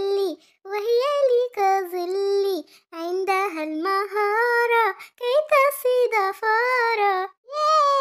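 A child singing an Arabic children's song about a little cat, solo, in short melodic phrases with brief pauses between them, holding a long, slightly falling note near the end.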